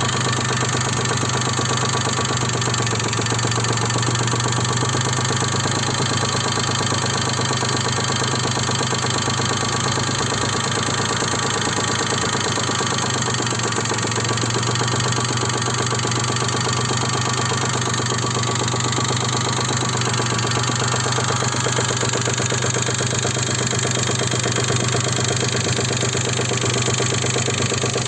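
Daewoo Matiz 0.8-litre three-cylinder engine idling steadily with a knock the owner cannot place. The knock stays whatever the distributor timing is set to, so ignition timing is not its cause.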